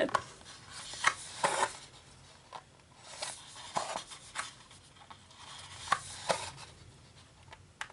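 Needle and thread being pulled by hand through scrapbook paper, with the sheet being handled: several short, irregularly spaced scratchy pulls and rustles.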